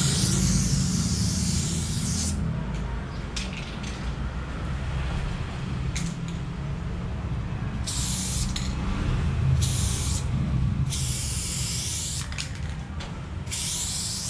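Aerosol spray paint can hissing in bursts as outlines are sprayed. A long spray stops about two seconds in, then come a few quick spurts, then several bursts of about a second each, with pauses between strokes. A steady low rumble runs underneath.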